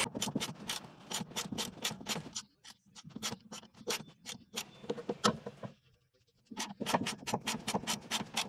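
Socket ratchet clicking as it backs a sway bar link nut off its stud, about five clicks a second. The clicking thins out partway through, stops briefly about six seconds in, then picks up quickly again.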